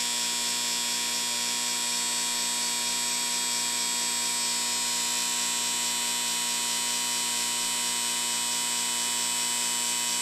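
Electric football game board buzzing steadily: its vibrating metal field running, driving a tweaked player base down the field in a run test.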